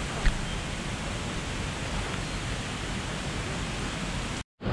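A steady rush of falling water, with one short click just after the start; the sound breaks off for a moment near the end.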